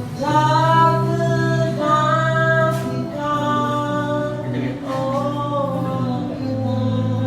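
Live music: a singer holding long sung notes over sustained instrumental chords.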